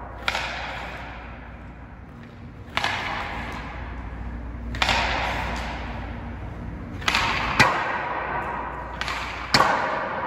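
Hockey pucks shot one after another with an STX Stallion HPR 2 stick in an empty arena. Six sharp cracks come roughly every two seconds, two of them half a second apart near the end of the sequence, and each rings out in a long hall echo.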